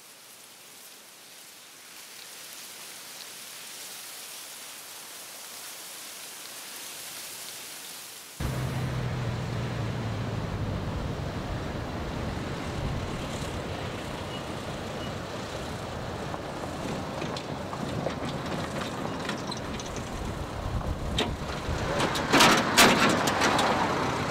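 A steady hiss, then an abrupt change about eight seconds in to a louder low rumble with a hum, and a burst of scuffling and sharp knocks near the end.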